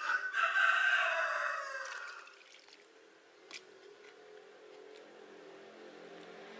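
A rooster crows once, a call lasting about two seconds. A single light knock follows midway, and a faint engine hum builds toward the end.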